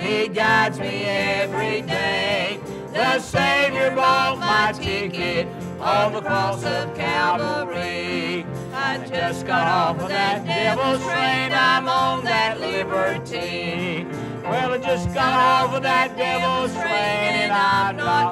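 Country gospel song: a solo voice singing with wide vibrato over steady instrumental accompaniment.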